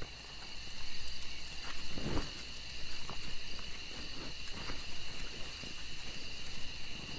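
Crickets chirping steadily, with scattered soft knocks and a low thump about two seconds in.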